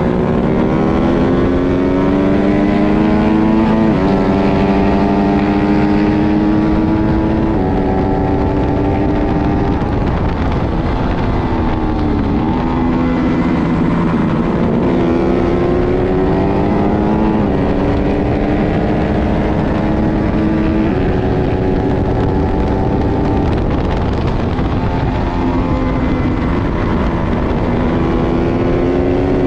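Twin-cylinder race motorcycle engine at full throttle, its pitch climbing and dropping sharply at each upshift, about four seconds in, near eight seconds, around seventeen and twenty-one seconds. In between, the pitch falls and then climbs again as the bike slows and accelerates once more, with a steady rush of wind on the microphone underneath.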